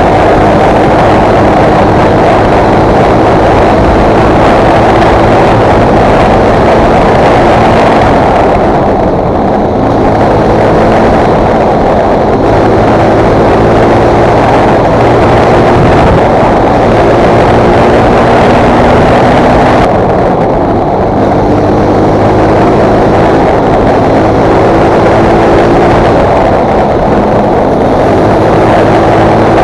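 Fantic Performance 125 motard's four-stroke 125 cc engine running hard under way, its pitch climbing and dropping with the throttle and gear changes. The throttle eases off briefly twice, about a third and two-thirds of the way through.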